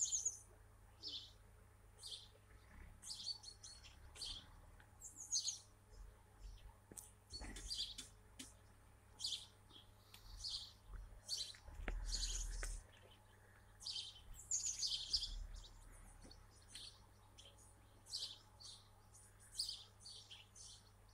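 Small birds chirping: short, high calls repeated irregularly and faintly, with a brief low rumble about twelve seconds in.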